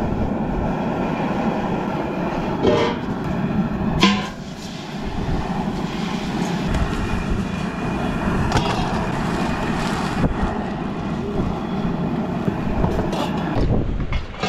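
Outdoor single-burner camp stove running with a steady rushing flame noise just after being lit, with a few metal clanks as a stainless stockpot and its lid are handled on it, the loudest about four seconds in.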